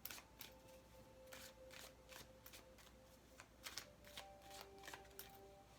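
Tarot cards being handled and shuffled: a run of soft, quick card clicks and flicks, faint under quiet background music with sustained tones.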